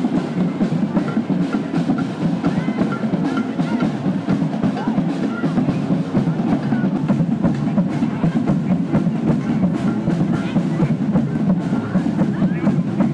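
Parade drums playing a fast, steady beat of many quick strokes, with crowd chatter beneath.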